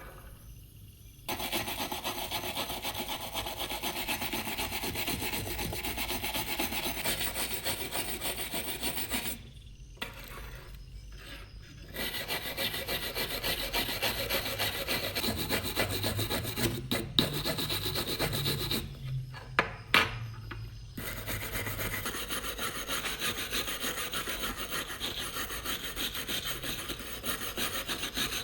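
Abrasive rubbing: fast, repeated scraping strokes of hand sanding or filing on a worn surface, stopping twice for a couple of seconds, with a few sharp clicks between strokes.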